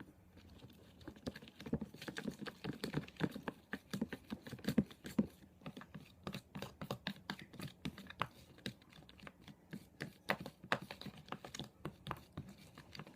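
Spoon stirring white glue and acrylic paint in a bowl: a busy run of irregular clicks and scrapes of the spoon against the bowl.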